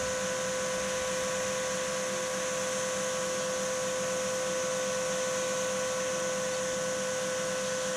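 A steady, unchanging machine-like hum: a constant mid-pitched whine over an even hiss.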